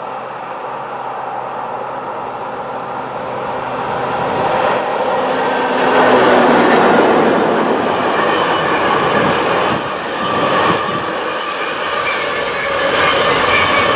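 Class 92 electric locomotive hauling a container freight train, approaching and passing close by, loudest about six seconds in. A long line of container wagons follows, rolling past with steady wheel-on-rail noise and a hum of several steady tones.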